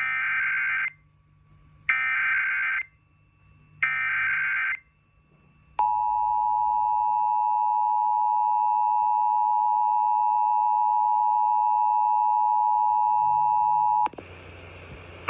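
Emergency Alert System test: three short bursts of SAME digital header data, each just under a second, then about six seconds in the two-tone EAS attention signal, a steady dual tone held for about eight seconds that cuts off abruptly.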